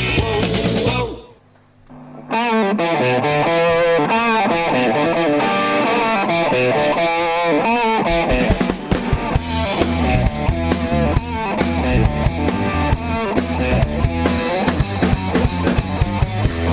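Music with electric guitar and drum kit; it drops out briefly about a second in and resumes about two seconds in.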